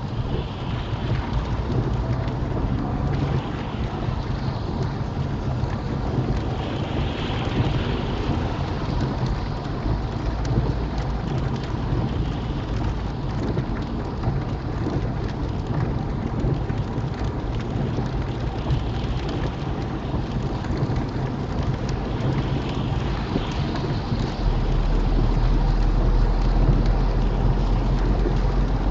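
Rain hitting a small car's windscreen over steady tyre and road noise, heard from inside the car at motorway speed. The low road rumble steps up louder near the end.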